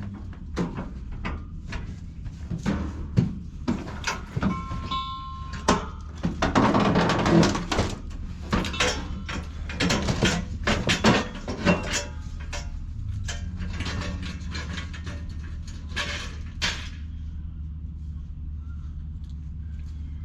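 Repeated metal knocks, clanks and scrapes from hands-on work on an air-conditioner condenser unit and its fittings, with a brief squeal about five seconds in. A steady low hum runs underneath.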